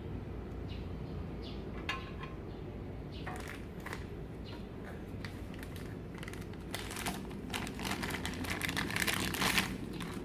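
Light clicks and a crinkling rustle over a steady low hum. The clicks are scattered at first, then grow into a dense, louder crackle for the last few seconds.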